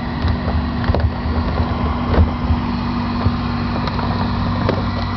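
Steady mechanical hum with an uneven low rumble in a light aircraft's cockpit, with a few faint knocks.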